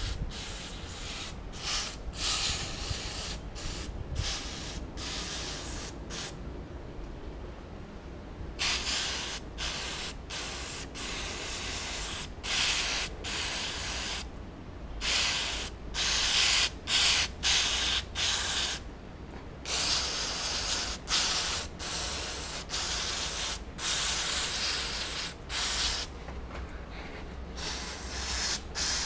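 Aerosol can of CYCLO brake cleaner spraying through its extension straw onto a bicycle's rear cassette and derailleur to degrease them, in many short hissing bursts and several longer blasts of a second or two.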